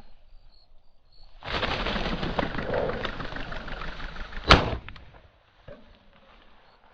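An upland game bird flushes about a second and a half in, a sudden burst of rapid wingbeats lasting about three seconds. It ends in a single loud shotgun shot.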